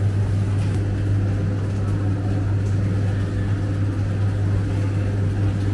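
Commercial kitchen machinery running with a steady low hum, with a few faint light clicks over it.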